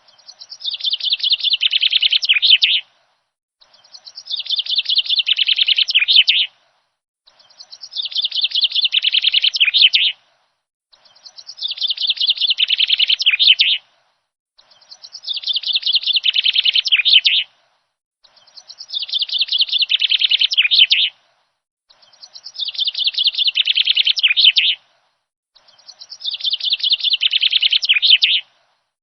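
Songbird song: a phrase of rapid chirps about three seconds long, growing louder and ending abruptly. It repeats eight times, identically, about every three and a half seconds, with clean silence between.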